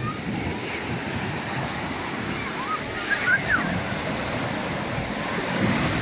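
Sea surf washing and breaking on a sandy shore. Faint distant voices of people in the water come up about halfway through.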